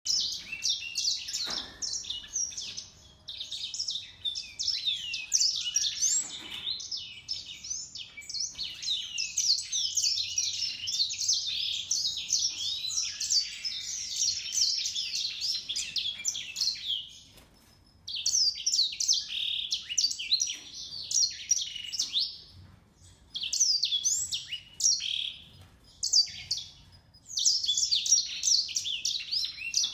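Small finch singing a long, fast warbling song of rapid high notes, unbroken for the first half, then in shorter phrases with brief pauses between them.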